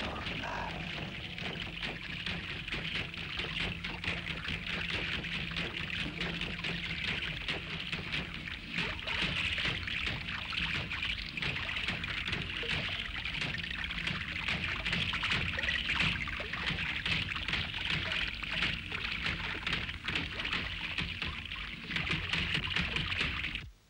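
Water pouring and splashing steadily from a carved stone fountain spout, a continuous spattering rush that cuts off abruptly at the very end.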